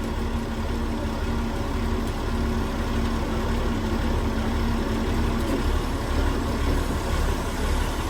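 Steam boiler plant machinery in a rice mill running steadily: a heavy low rumble with a steady hum over it that fades out about six and a half seconds in.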